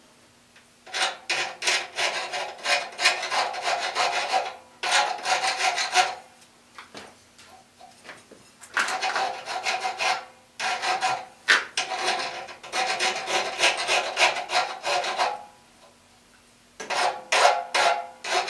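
Hacksaw cutting through threaded rod in several runs of quick back-and-forth strokes, with short pauses between the runs.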